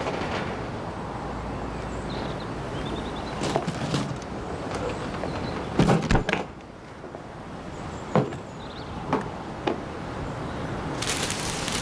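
Scattered knocks and clatters of things being handled in a wooden shed, the loudest a quick cluster about six seconds in, then a rustling scrape near the end as a hand reaches into the rafters.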